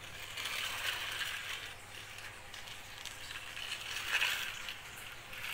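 Dry sand scraping and hissing as a plastic toy scoop truck is pushed through it by hand, the red plastic blade shoving sand along. Two stretches: from about half a second in to about two seconds, and again briefly around four seconds.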